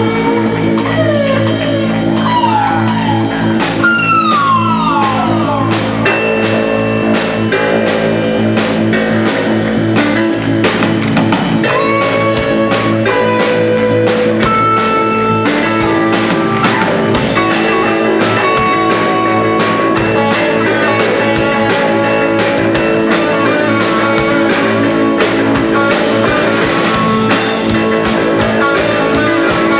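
A rock band playing, led by guitar, with several sliding notes that fall in pitch in the first few seconds, then steady sustained chords and melody lines.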